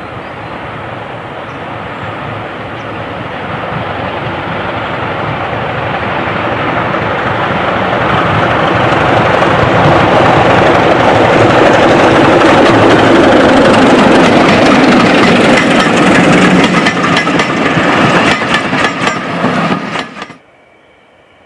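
Sulzer Type 2 diesel locomotive hauling a rake of coaches, approaching and growing steadily louder as the engine sound builds. It passes close by, with the wheels clicking over the rail joints, and the sound cuts off abruptly about a second before the end.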